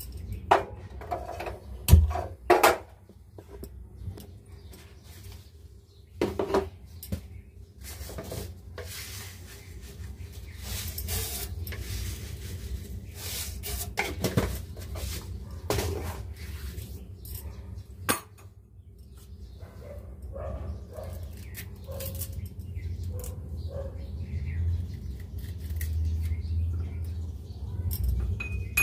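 Kitchen pots, cups and cutlery clattering and clinking as they are handled and set down, in irregular knocks and scrapes; a sharp knock about two seconds in is the loudest.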